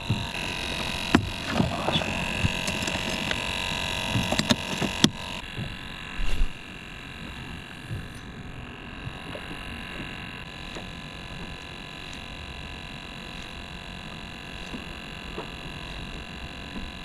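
Fishing gear being handled in a plastic kayak: a handful of sharp knocks and clicks over the first five seconds or so, then a steady low background noise.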